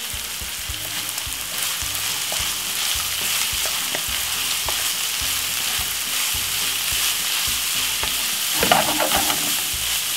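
Minced beef and frozen sweet corn sizzling in a hot non-stick frying pan, the frozen corn just added and steaming. A wooden spoon stirs the mix, with many small scrapes and taps against the pan.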